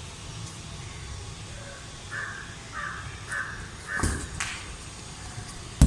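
A bird calling four times in quick succession, about half a second apart, over a low steady outdoor background. Then a thud of a football being kicked, and a sharp knock near the end.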